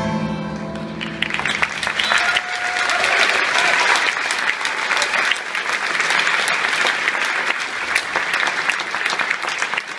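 The last notes of a chacarera from a live ensemble of violin, piano, bandoneon and double bass die away about a second in, and an audience breaks into steady applause.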